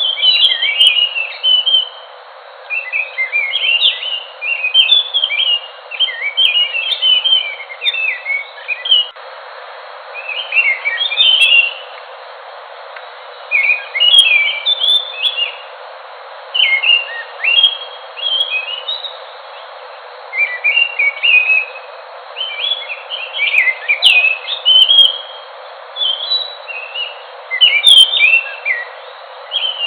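An anis ground thrush singing: bursts of quick, varied whistled notes in phrases a second or two long, with short pauses between. The recording sounds thin, with no low end.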